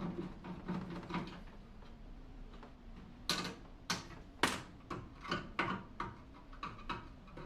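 Hand tools working on a microwave's metal casing during a teardown. A rapid clicking at the start is followed, from about three seconds in, by a string of sharp, irregular metal clanks and knocks.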